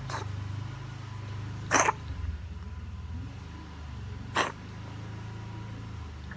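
Cat coughing: a faint short cough right at the start, then two sharp coughs about two seconds and four and a half seconds in, over a steady low hum.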